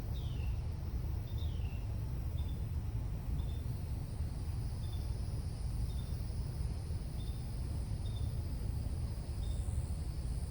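Outdoor ambience: a steady low rumble of wind on the microphone, with a short high chirp repeating about once a second and two falling whistled notes near the start.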